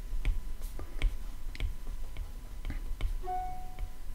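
Stylus tip tapping and clicking on a tablet's glass screen while handwriting, irregular clicks about two to three a second. A short steady tone sounds near the end.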